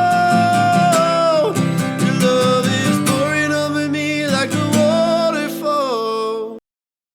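Final bars of a Christian worship song: acoustic guitar and band chords under a long held, wordless melodic line, cutting off abruptly about six and a half seconds in, then silence.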